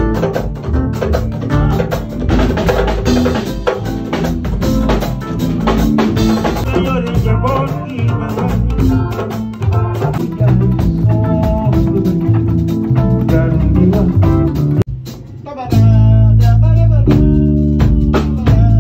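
Live mbalax band rehearsing, with drum kit, bass guitar, electric guitars and keyboards playing together. The band drops out briefly about 15 seconds in, then comes back in louder.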